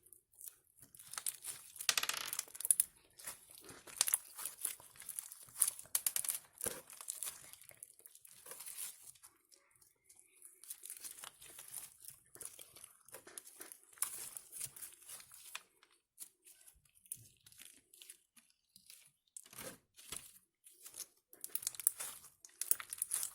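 Hands squeezing and stretching slime, with irregular crackling and popping squelches.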